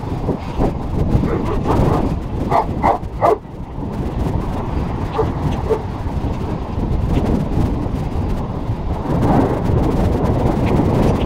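Dog barking, a quick run of about three barks between two and three seconds in, with a few fainter ones around it, over a steady low rumble from the camera moving on a run.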